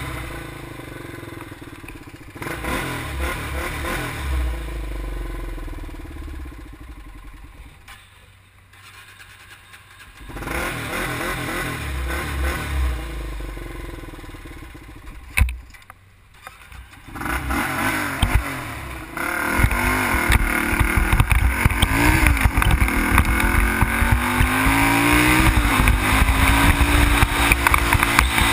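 Sport quad (ATV) engine running unevenly with a few blips, dropping low twice. About two-thirds in, the quad pulls away and runs steadily under way, its revs rising and falling, with wind rumble on the microphone.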